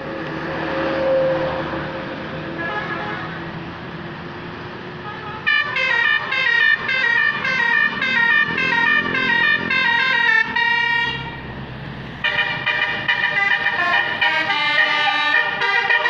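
Bus's multi-tone 'telolet' musical horn of the Basuri type, playing a fast jingle of stepped notes from about five seconds in. It breaks off briefly around eleven seconds and then starts a second melody. Before the horn there is only steady vehicle noise.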